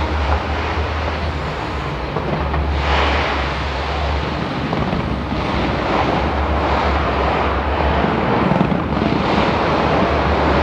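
A dense fireworks barrage going off overhead: a continuous rolling rumble of explosions and crackle, with louder surges of bursts about three seconds in, around five to six and a half seconds, and again near nine and a half seconds.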